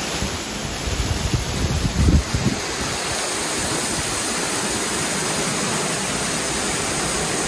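Heavy tropical downpour: a steady rushing hiss of rain, with a stream of runoff pouring off the roof edge. Low wind rumbles buffet the microphone during the first couple of seconds.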